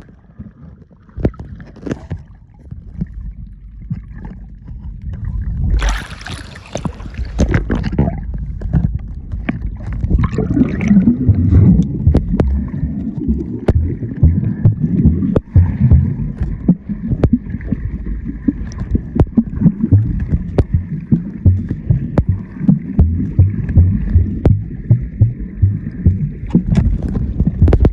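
Muffled sea-water sloshing and knocking against a phone filming underwater. A short rush of hiss comes about six seconds in, and in the second half there is a fast, uneven run of low thuds.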